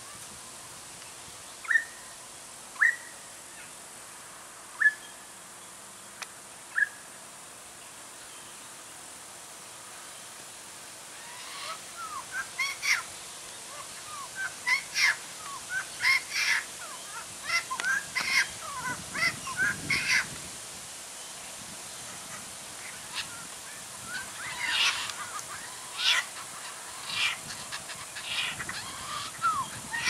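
Laughing kookaburra calling. A few short sharp single notes come first, then from about eleven seconds in a long run of rapid, rising and falling notes: the kookaburra's laughing call.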